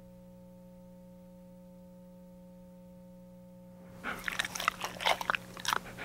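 A faint steady electrical hum, then from about four seconds in a dog's quick, irregular clicking and smacking mouth noises.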